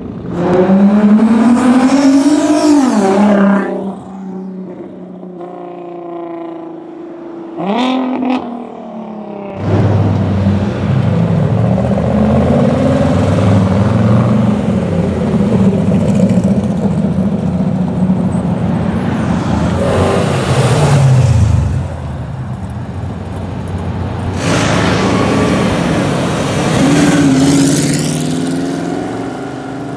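Sports car exhausts as cars accelerate away one after another. A rev climbs in pitch and drops at an upshift, then comes a short sharp rev. A long loud rumble follows, with one car's note falling as it goes by, and near the end another rev rises and drops at an upshift.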